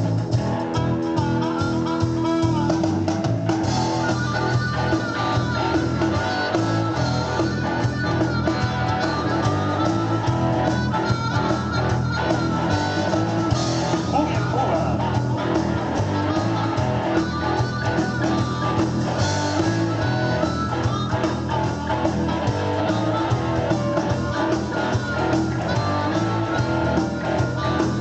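A live band playing an instrumental passage with guitar over a steady beat.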